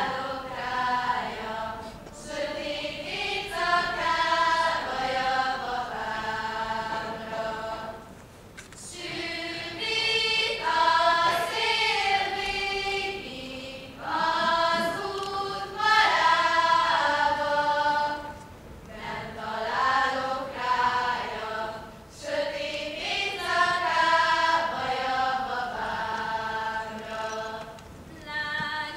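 A group of women singing a Hungarian folk song together, in sung phrases of a few seconds with short breaks between them.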